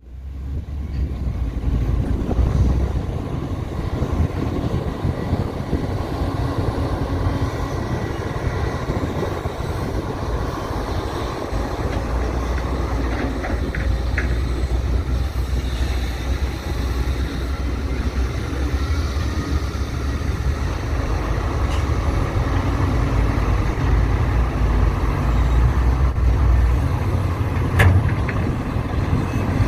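Diesel engines of excavators and a dump truck running steadily under load, a low rumble that swells and eases as the machines work, with a single sharp knock near the end.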